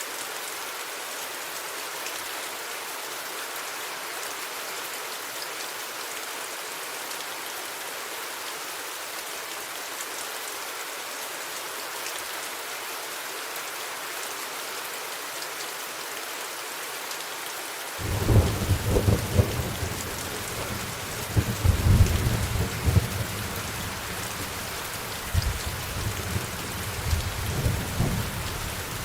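Steady rain falling, and about two-thirds of the way through a deep roll of thunder breaks in suddenly and rumbles on in several loud surges to the end.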